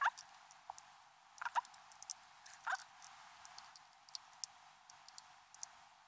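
Faint clicks and taps as multimeter test probes are touched to the metal terminals of LiFePO4 battery cells, one cell after another. The three fullest taps come at the start, about a second and a half in, and near the three-second mark.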